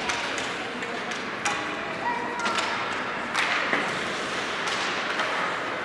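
Scattered thuds and knocks over a steady background of indistinct voices, echoing as in a large hall.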